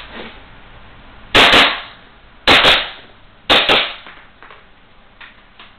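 Airsoft pistol firing six shots as three quick double taps about a second apart, each pair of sharp pops trailed by a short echo off the room's walls. A few faint clicks follow the last pair.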